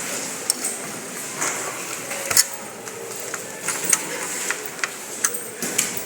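Irregular clicks and knocks of computer system unit parts being handled, over a steady hiss.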